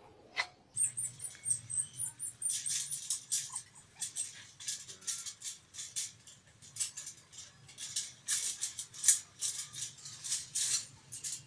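Wire chain-link fence rattling and clinking in quick, irregular bursts as a dog climbs it, its claws catching on the mesh. A high, thin chirping sounds briefly about a second in.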